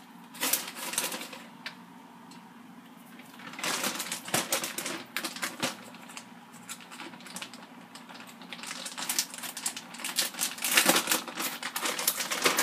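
Plastic shredded-cheese bag crinkling and rustling in three bouts of rapid crackles as it is handled and cheese is shaken out.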